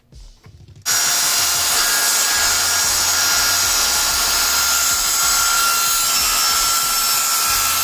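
A circular saw starts about a second in and cuts through a wooden board. The sound is a loud, steady whine over the noise of the blade in the wood.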